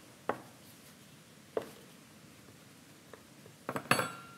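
A metal fork pressing the edge of a folded dough pastry shut against a wooden tabletop, its tines giving single sharp taps twice. Near the end comes a quick cluster of clicks and a short metallic ring as the fork is set down on the table.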